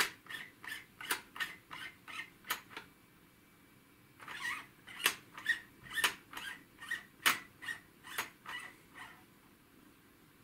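Multi-turn Beckman potentiometer dial turned by hand, making a series of short squeaky clicks, about three a second. The clicks come in two runs with a brief pause about three seconds in, and stop about nine seconds in.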